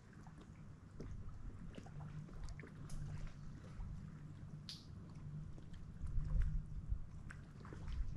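Kayak poling through shallow water: quiet water lapping against the hull and a low wind rumble, with small knocks and clicks from the pole and gear and a short hiss about halfway through.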